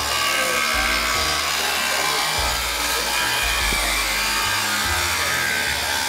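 Miniature sawmill edger, a gang of ten small saws, running and cutting a board into narrower boards as chain-driven feed rolls carry it through. The cutting noise is steady, over a low motor hum that shifts in level every second or so.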